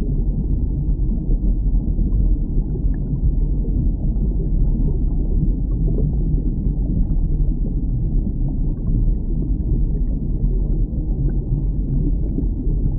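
Underwater ambience: a steady low rumble of moving water, with a few faint scattered ticks.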